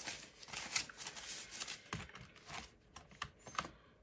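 Paper banknotes and a paper cash envelope being handled: irregular rustles and crinkles of paper money.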